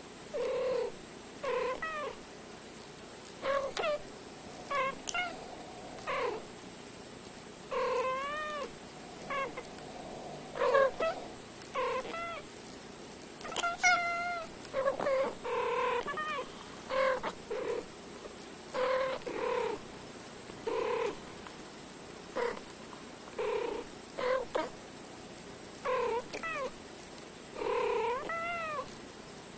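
Two domestic cats making short chirping meows and trills, one call after another about every second, each a brief note that bends up and down in pitch.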